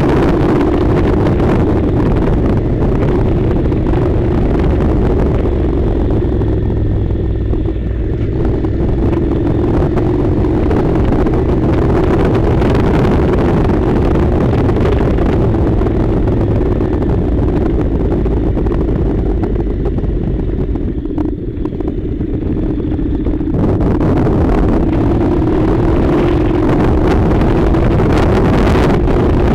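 Honda NC700's parallel-twin engine running steadily while riding, with wind rushing over the microphone. The sound eases off briefly twice, about 8 and 21 seconds in.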